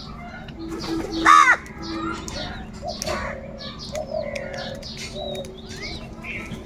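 Crows cawing, several calls overlapping one after another, with one loud, harsh caw about a second and a half in, over a steady low hum.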